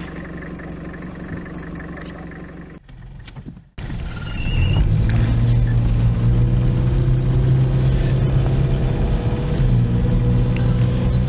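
Car engine heard from inside the cabin while driving across snow: a loud, even engine note that starts after a short silence about four seconds in. Before the silence there is a quieter steady engine hum.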